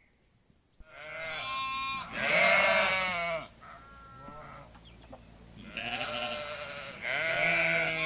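Sheep bleating: a run of long, quavering baas starting about a second in, with a fainter, higher bleat in the middle and more baas near the end.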